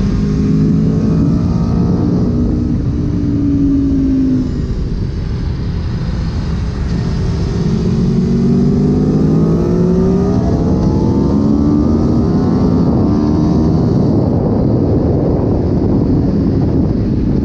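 Aprilia motorcycle engine heard from on board at track speed. Its pitch drops about four seconds in as the revs fall, then climbs steadily as the bike accelerates and stays high, with wind rushing over the microphone growing stronger in the second half.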